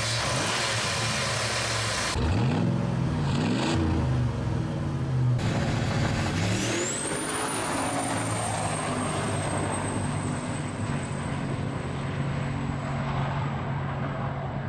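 1993–1995 Ford Lightning's 351 Windsor V8 revved a couple of times, the pitch rising and falling. Then the truck runs hard down a drag strip: a steady engine drone with a thin high whine held above it.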